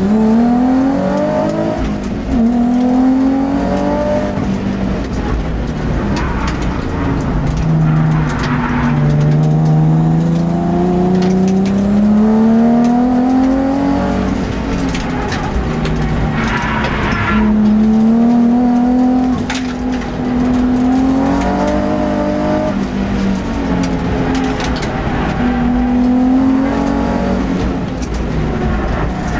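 Twin-turbocharged race car engine heard on board at full track pace. Its note climbs slowly and steadily under load, then drops on lifts and gear changes, over and over.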